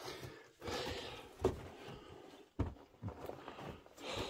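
Footsteps crunching on loose rock rubble, with a few sharp knocks.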